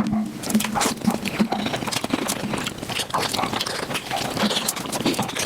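Eating sounds of mutton nalli (marrow bones) sped up about five times: a rapid, continuous clatter of chewing, smacking and sucking clicks, with short chipmunk-like squeaks mixed in.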